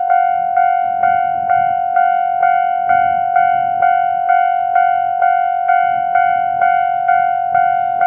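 Japanese railway level-crossing warning bell ringing steadily, about two strikes a second, each ringing tone carrying over into the next, signalling that a train is approaching.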